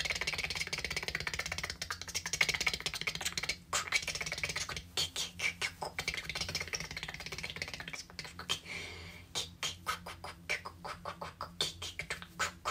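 Light language voiced as non-word mouth sounds: breathy hissing run together with rapid tongue clicks, breaking about four seconds in into quick separate clicks with short pauses between them.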